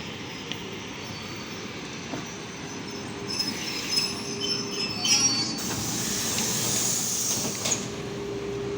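ED4M electric multiple unit train moving on the track, its wheels squealing with high tones from about three seconds in over a steady rumble. A loud hiss comes in the middle, and a steady hum takes over near the end.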